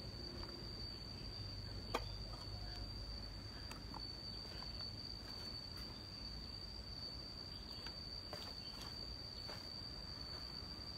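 Steady, unbroken high-pitched insect trill, with a single sharp click about two seconds in and a few faint clicks and knocks.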